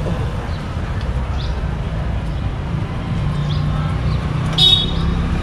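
Steady low rumble of street traffic, with a few faint high chirps and one short, loud, high-pitched sound near the end.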